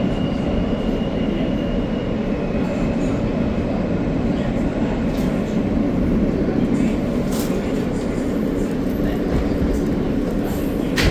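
Steady rumble and wheel noise heard inside an R160A subway car. A faint high whine fades out about three seconds in, and a few sharp clicks come later.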